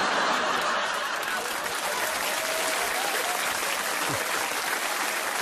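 Live audience applauding a punchline, a steady clatter of clapping that holds at an even level.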